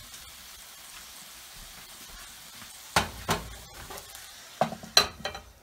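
Sautéed mushrooms sizzling steadily in a nonstick skillet. A silicone spatula then scrapes them out into a bowl, with about four sharp knocks of pan and spatula against the bowl. The sizzle dies away near the end as the pan comes off the heat.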